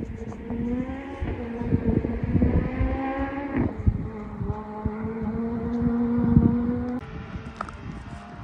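Rally car engine accelerating hard, its pitch climbing until a gear change about three and a half seconds in, then pulling up through the revs again. The sound drops abruptly in level about seven seconds in, with irregular low thumps underneath throughout.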